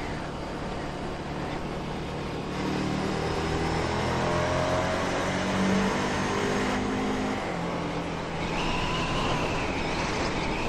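Ducati Scrambler Sixty2's 399 cc air-cooled L-twin accelerating hard inside a road tunnel. The engine note climbs as it is wound up from about two and a half seconds in, then eases back near the end.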